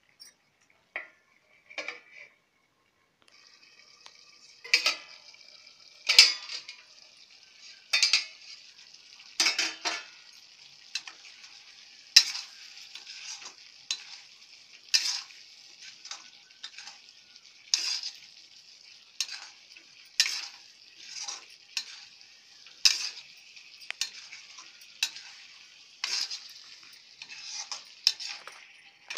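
Raw mango wedges sizzling in oil in a kadai, with a steady frying hiss from about three seconds in. A metal ladle stirs them, scraping and clacking against the pan about once every second or so.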